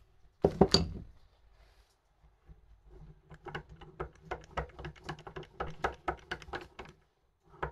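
A sharp clack about half a second in, then rapid metallic clicking at about five clicks a second as the Ape 50 starter motor's drive pinion is worked by hand on its freshly greased shaft; it now runs more freely than it did.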